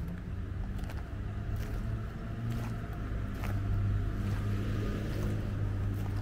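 Low, steady hum of a motor vehicle's engine, growing louder about halfway through, with a few faint clicks over it.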